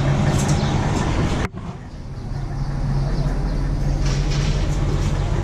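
Coach bus engine idling with a steady low hum. About a second and a half in the sound drops abruptly to quieter ambience with faint voices.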